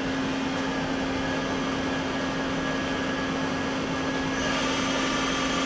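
The subspindle of a 1999 Daewoo Puma 200LMSA CNC turning center spinning with a steady mechanical hum and a steady low tone. About four and a half seconds in, a higher hiss joins as it is brought up from 500 RPM toward 1,500 RPM.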